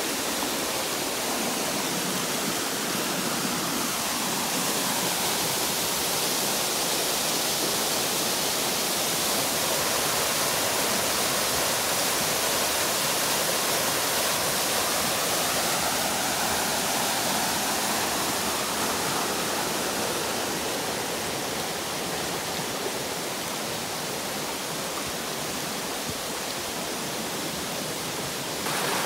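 Mountain brook and a small waterfall cascading over granite ledges: steady rushing water, a little louder mid-way.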